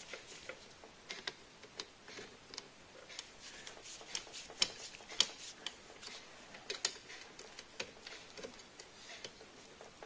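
Irregular light clicks and ticks of a hand screwdriver turning a small screw that fixes a wire clamp on a refrigerator compressor, the loudest clicks a little after halfway.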